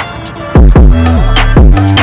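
Background music with a heavy electronic beat: deep bass hits that slide down in pitch, held bass notes, and sharp ticks over them.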